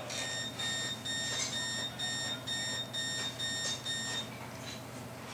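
A run of about ten short electronic beeps, evenly spaced at roughly two a second, all at one steady high pitch, stopping about four seconds in.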